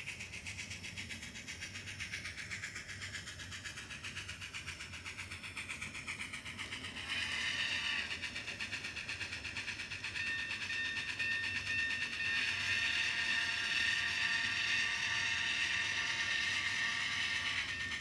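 Bachmann Spectrum 4-8-2 Mountain model steam locomotive running with its onboard sound playing rapid, even steam chuffs. It gets louder about seven seconds in and again around twelve seconds in, when a steady high tone joins.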